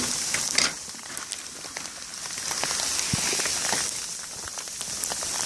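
Sleet and wet snow falling steadily, a fine hiss peppered with small ticks as the pellets hit trees and ground, with a brief louder rustle about half a second in.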